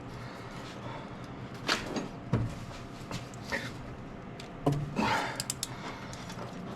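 Scattered clinks and knocks of hand tools being handled against metal, a few single hits and then a quick cluster a little past the middle, over a steady low hum.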